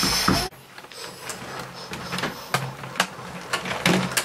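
A Lego toy train running on plastic track: the small electric motor's steady low hum with scattered clicks. A brief loud rustle at the very start is the loudest sound.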